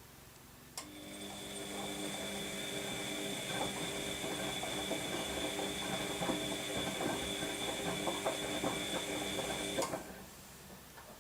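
Washing machine motor turning the drum during the wash, a bout of tumbling between pauses: a click about a second in, then a steady motor whine over irregular rattling of the tumbling load, running about nine seconds before stopping abruptly.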